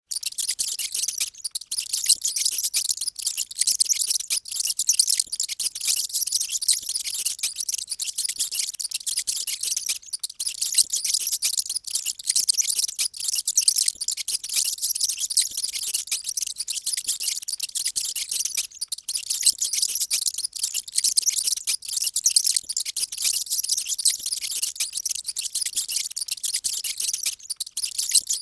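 Many mice squeaking at once: a loud, continuous, high-pitched chatter of overlapping squeaks with no pauses.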